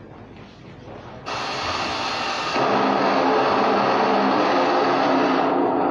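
Recorded music of the national anthem over a loudspeaker system, loud and distorted. A hiss cuts in suddenly just over a second in, and held notes begin about two and a half seconds in.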